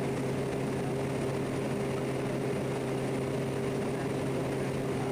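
Quest Kodiak 100's PT6A turboprop engine and propeller running steadily in flight, heard from the cockpit as an even drone with a few steady low tones.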